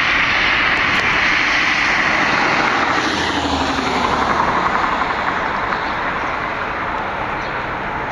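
Airbus A319-111 airliner's CFM56 turbofan engines roaring loudly as it passes close by; the pitch falls a little midway and the roar eases slightly near the end.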